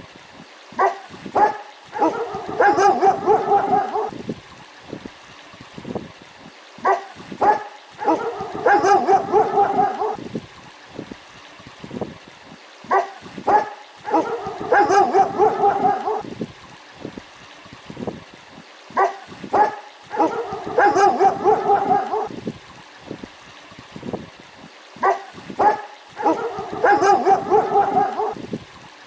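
German Shepherd dog barking angrily. The same pattern comes five times, about every six seconds: a few sharp single barks, then a run of rapid barking lasting about two seconds.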